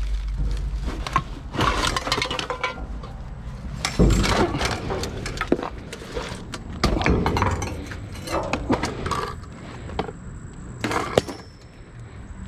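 Irregular clattering, rustling and clinking of discarded items being handled and shifted about in a dumpster, with several sharper knocks along the way.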